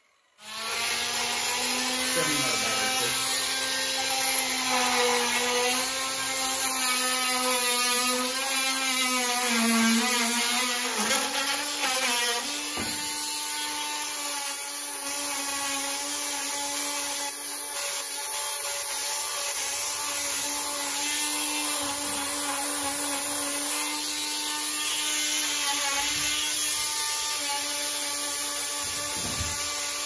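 A small handheld power tool running against the end of a pressure-treated pine board, with a steady motor whine. Its pitch wavers for about the first twelve seconds, then holds steadier and a little higher.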